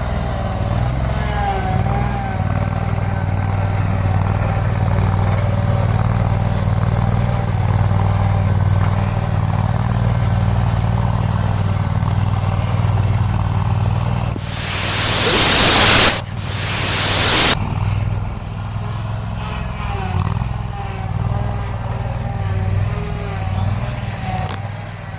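Scag Turf Tiger zero-turn mower's engine running steadily under load while plowing snow. About halfway through, two loud rushing noises cover it: the first swells for about a second and a half and cuts off sharply, the second lasts about a second.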